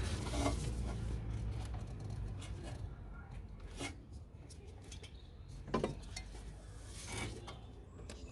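Light clicks, knocks and rubbing of plastic intake parts being handled and fitted into place, with a faint low rumble in the background at the start.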